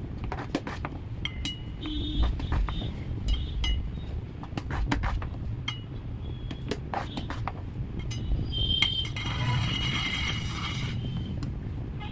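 Metal palette knife clinking and scraping against a metal cake turntable and a bowl while spreading whipped cream, with many short irregular clicks. A high-pitched tone sounds for about two seconds near the end.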